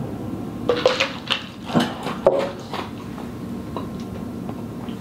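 Tableware knocking and clinking as a plastic cup is set down on the table and food is handled on a plate. A cluster of sharp knocks comes from about a second in to nearly three seconds in, over a steady low hum.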